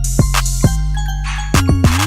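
Hip hop beat: a deep, sliding bass, drum hits and a bell-like mallet melody.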